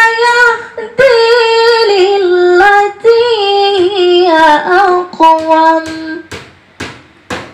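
A woman's voice reciting the Quran in the melodic murattal style, long held notes sliding between pitches. The recitation stops about six seconds in, followed by a few short sharp noises.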